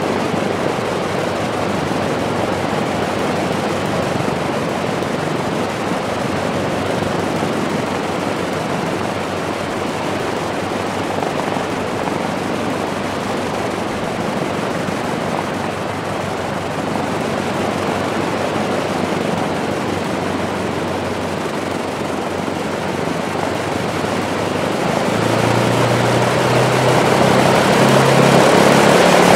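Lockheed P-38F Lightning's twin liquid-cooled Allison V-1710 V-12 engines running on the ground with their propellers turning, a steady rushing drone. Near the end it grows louder and a deeper engine note comes through.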